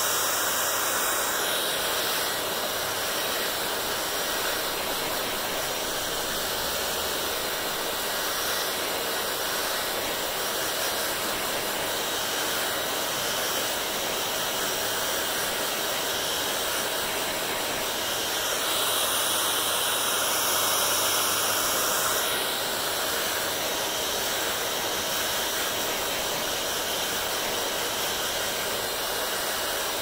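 Handheld hair dryer running steadily, its air rushing through long wet hair. The rush grows a little louder and brighter for about three seconds roughly two-thirds of the way through, then settles back.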